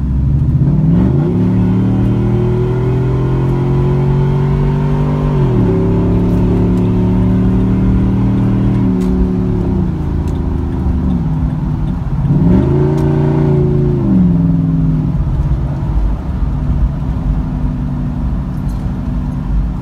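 Ford 3-valve modular V8 engine and exhaust heard from inside the cabin while driving. The engine note holds steady for stretches and glides up and down several times as the revs change.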